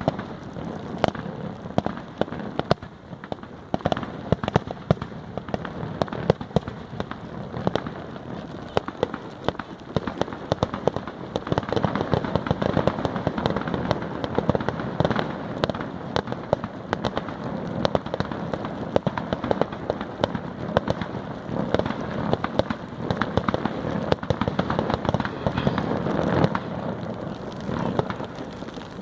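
Fireworks display: a rapid, continuous run of bangs and crackling, growing denser and louder from about twelve seconds in and easing off near the end.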